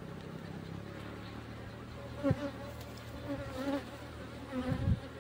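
Honeybees buzzing around an open hive: a steady hum, with single bees flying close by, their pitch wavering up and down. Two brief knocks, one about two seconds in and one near the end.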